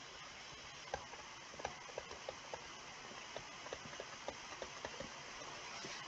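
Stylus tip ticking and tapping on a tablet screen while handwriting: about a dozen light, irregular ticks starting about a second in, over a faint steady hiss.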